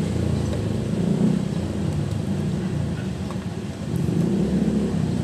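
A motor vehicle engine running steadily with a low hum, easing off a little about three and a half seconds in and picking up again.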